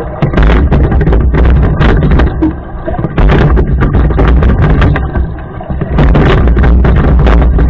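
Heavy wind buffeting on the camera microphone over water rushing past a moving rowing boat: a loud, crackling rumble that eases briefly twice.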